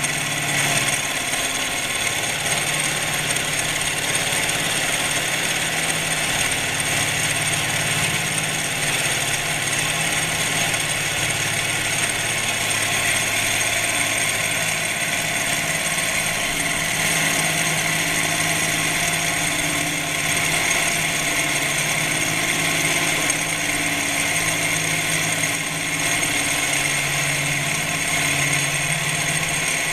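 Milling machine face-milling with a 50 mm face mill: a steady machine hum with a constant high whine and cutting noise, unchanged throughout.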